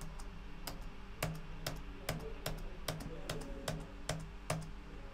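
Computer keyboard Enter key pressed over and over, about ten sharp keystroke clicks at roughly two a second, each press advancing a text pager by one line.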